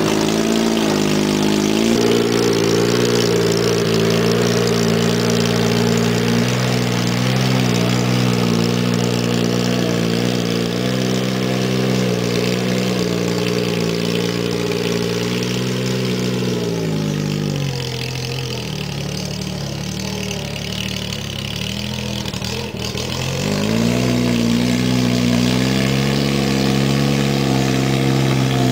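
Case 1816 skid-steer loader, powered by a Geo Metro car engine, running at steady revs. A little past halfway the engine note drops to a lower idle for about five seconds, with a single click, then revs back up and holds steady.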